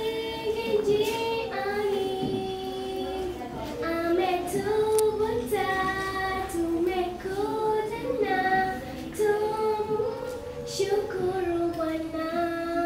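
A child singing solo and unaccompanied, a melody with long held notes.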